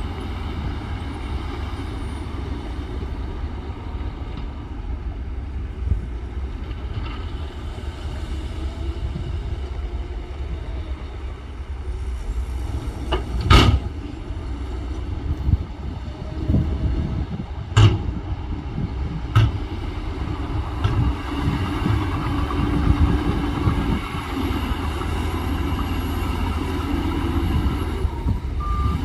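Heavy diesel earthmoving machinery running steadily at work, with three sharp bangs about halfway through, the first the loudest.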